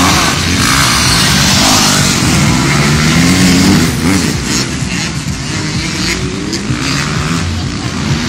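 Motocross motorcycle engines revving, their pitch rising and falling as riders race round the dirt track. The engines are loudest in the first half, then slightly quieter.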